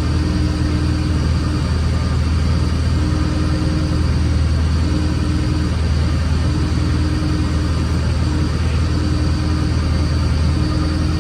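Vehicle engine running steadily with a low, even drone, with a mid-pitched tone that comes and goes every second or two.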